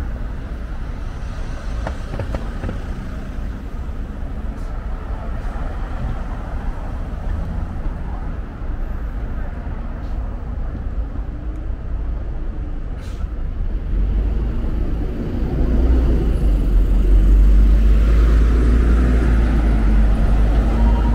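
City street traffic: a steady hum of passing cars. Partway through, a heavy vehicle's low engine rumble swells and is loudest near the end.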